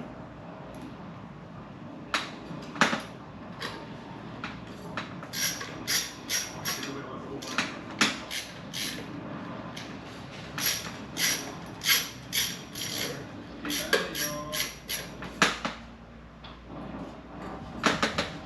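Irregular sharp clicks and knocks of hand work on a Hunter ceiling fan's housing and mounting screws.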